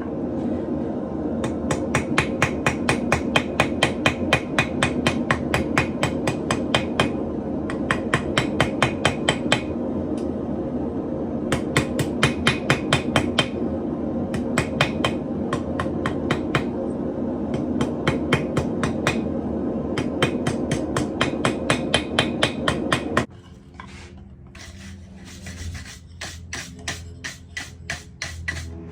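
Rapid hand-hammer blows on hot stainless steel rod, struck in runs of several seconds with short pauses, straightening the chopsticks and finishing their tapers. They sound over a steady rushing background. Everything cuts off abruptly about 23 seconds in, leaving a quieter stretch with scattered light ticks.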